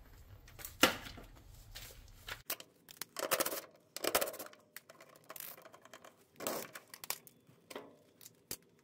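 Irregular short clicks, scrapes and rustles of plastic parts being worked loose with a screwdriver: the shift actuator and plastic clutch coming off a GE top-load washer's transmission.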